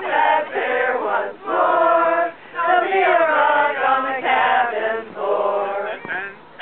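A busload of people singing a song together, men's and women's voices mixed, in short phrases with brief breaks between them.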